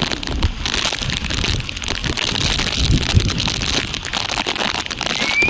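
Heavy rain falling, with gusty wind buffeting the microphone in rumbles and a steady crackling hiss of rain.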